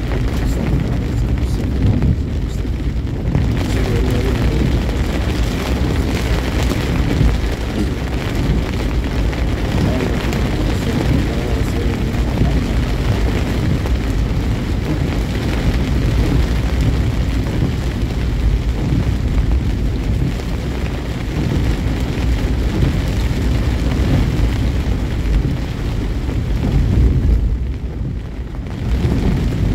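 Wind buffeting the microphone over the road rumble of a moving vehicle: a dense, loud low rumble that eases briefly near the end.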